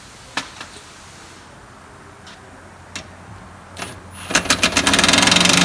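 A few light clicks and knocks, then about four seconds in an impact driver starts hammering rapidly and loudly, running 3/8 bolts in with a 1/2 inch socket.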